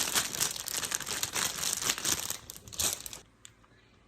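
Plastic gallon bag crinkling as chunks of beef inside are worked around to rub in salt and pepper; the crinkling stops about three seconds in.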